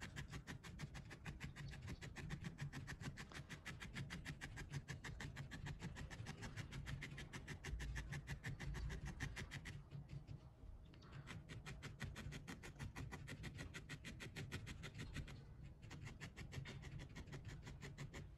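Felting needle jabbing rapidly into white wool roving on a cloth-covered felting pad: a quick, even run of soft scratchy pokes, about six a second, pausing briefly twice in the second half.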